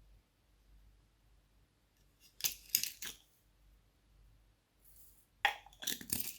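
Glossy slime worked by hand, giving two short runs of crackling clicks and pops, about two and a half seconds in and again near the end.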